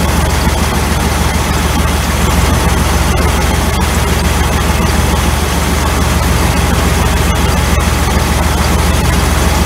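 Car engine idling steadily on an Edelbrock 1406 Performer 600 CFM carburetor: a low, even drone with a hiss over it. The passenger-side idle mixture screw is being fine-tuned for the highest idle vacuum.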